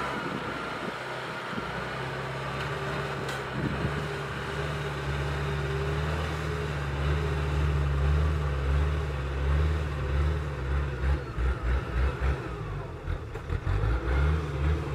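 Engine of a converted tracked rice harvester running under load as it hauls a full load of rice sacks up a dirt track. In the last few seconds the low sound turns uneven and pulsing.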